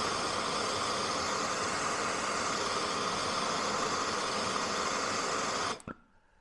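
Handheld gas blowtorch burning with a steady hiss as it heats a thick steel bar to a red glow; the flame cuts off suddenly near the end.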